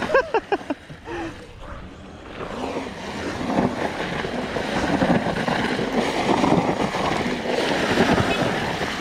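Electric dirt bikes, Sur Ron and Talaria Sting, drifting in loose dirt: tyres spin and spray dirt, and wind rushes over the microphone. In the first second there are a few quick motor whines that rise and fall as the throttle is blipped.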